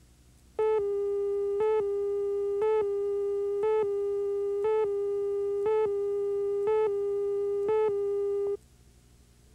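Countdown tone on a videotape commercial slate: a steady buzzy tone with a short louder blip about once a second as the countdown numbers tick down, eight blips in all. It starts about half a second in and cuts off suddenly about a second before the end.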